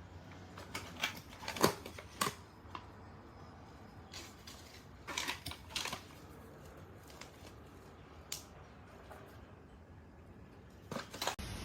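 Scattered clicks and short bursts of rustling from something being handled, over a faint steady hum. The sharpest click comes near the start.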